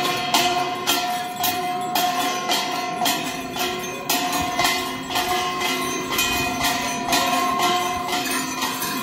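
Traditional Limbu dance music: a steady beat of clinking metallic percussion strikes about twice a second, with held tones and a stepping melody underneath.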